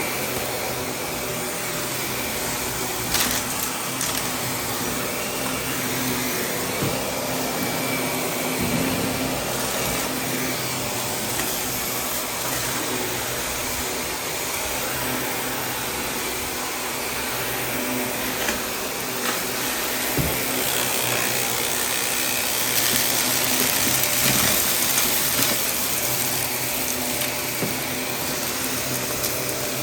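Vacuum cleaner running steadily over carpet, pulling up dry debris, with occasional sharp clicks. It gets a little louder for a few seconds near the end.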